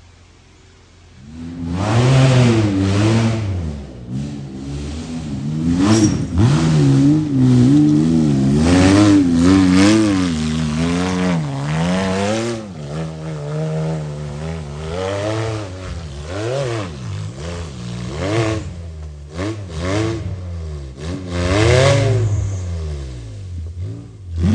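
Off-road race buggy's engine revving hard, its pitch climbing and dropping again and again as the throttle is blipped and held. It comes in loud about a second in.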